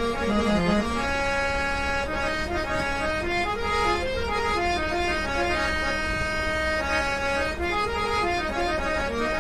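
New teak-bodied, two-reed-set folding harmonium with seven-fold bellows, made by The Sa Re Ga Ma Company of Kolkata with Jeevan Lal Rati Lal Mistri reeds, played as a sound test. It carries a melody of held notes stepping up and down over a steady low drone note.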